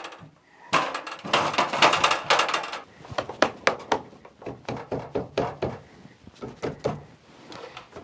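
A cut wooden board being worked into a tight fit. A rough scraping starts about a second in, followed by a run of irregular knocks and taps of wood on wood.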